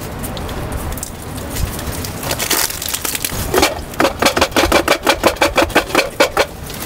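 Pineapple juice squirted from a small juice box through its straw into a plastic glass over ice: a quick, even run of spurts, about six a second, lasting a few seconds.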